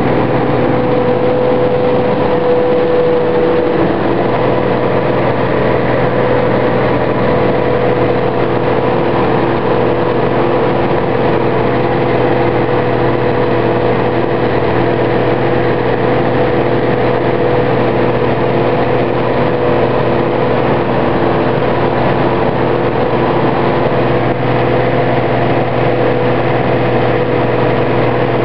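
Combine harvester running steadily while cutting wheat: its engine and threshing machinery make an unbroken drone with several steady tones, heard close up from the open operator's platform.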